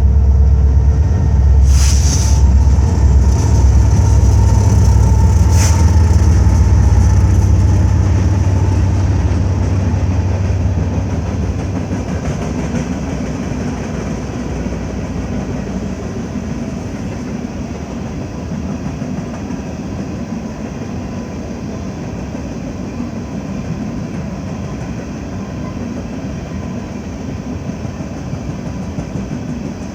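BNSF freight train passing. Its diesel locomotives run loud and low for the first ten seconds or so, then give way to the steady rolling noise of the cars on the rails. Two sharp clanks come about two and five seconds in.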